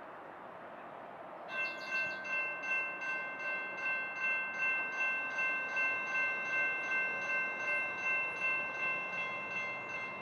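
General Signals Type 2 electronic crossing bell starting to ring about a second and a half in, a steady chiming tone repeating about two and a half times a second: the grade crossing has activated for an approaching light rail train.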